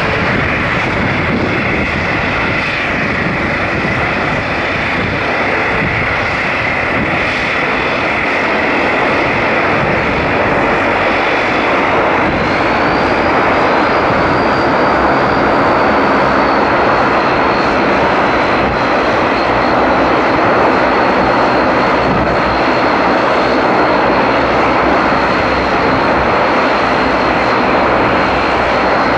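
Bombardier twin-turboprop airliner's engines running on the apron: a steady loud rush with a high whine. About twelve seconds in, a second whine rises, then settles and holds steady.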